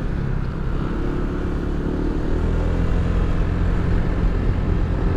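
Motor scooter engine running steadily under way, a low drone mixed with road and wind noise, its pitch rising a little about two seconds in.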